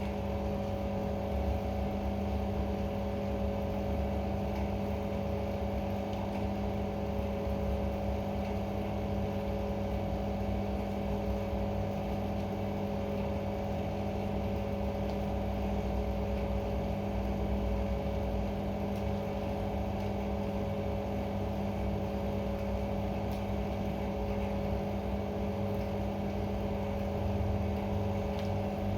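A steady machine hum, a motor or fan running at constant speed, with a low rumble beneath it.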